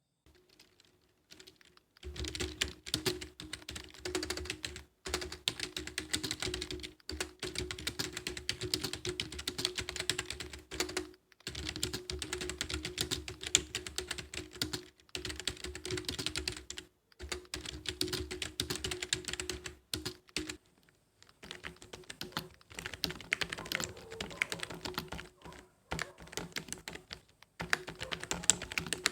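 Typing on a modded membrane keyboard whose keys have been lubed with oil and which has a thin cloth inside as sound dampening: fast, continuous keystrokes in runs broken by brief pauses, starting about two seconds in.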